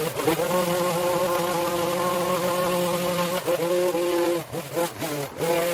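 Small petrol engine of handheld lawn equipment buzzing at high revs, its pitch held steady and dropping briefly a few times in the second half as the throttle is eased off and opened again.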